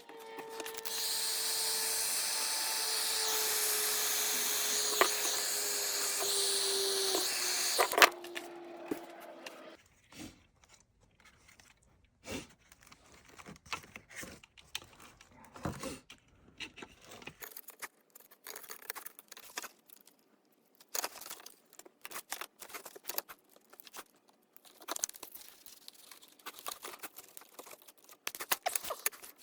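A small power tool runs steadily for about eight seconds, its motor tone sagging slowly lower, then stops with a sharp clack. After that come scattered light clicks and rattles of parts and tools being handled.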